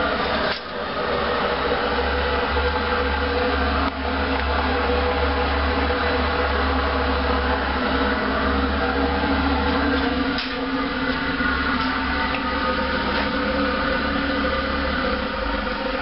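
Steady mechanical drone of a running machine: a strong low hum with several steady tones over it, dipping briefly about half a second in and again about four seconds in.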